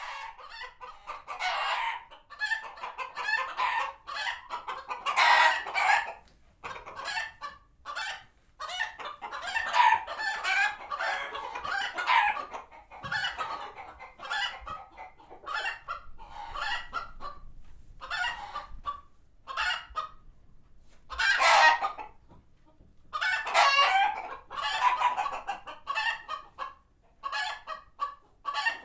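A flock of chickens clucking and squawking in repeated, agitated outbursts with short lulls between. These are alarm calls, set off by a hawk passing overhead.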